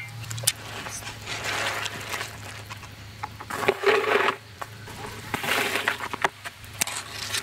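A wire-mesh strainer scooping boiled crawfish out of a cauldron of hot broth and tipping them into a plastic basin: splashing and scraping in irregular bursts with scattered clicks, loudest about four seconds in and again a little after five seconds.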